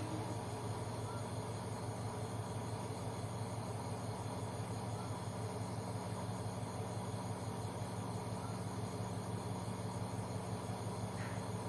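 Night insects, crickets, trilling steadily with a fast even pulse, over a steady low hum. A few faint short chirps come every few seconds.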